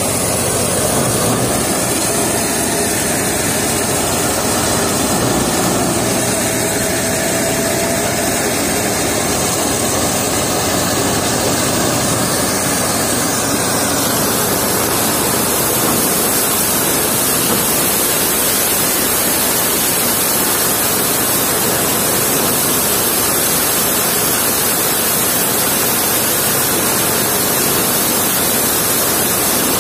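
Tractor-driven threshing machine running steadily while threshing sesame stalks. Its spinning drum and fan make a loud, even rush over the drone of the tractor's engine, and the sound's texture shifts a little about halfway through.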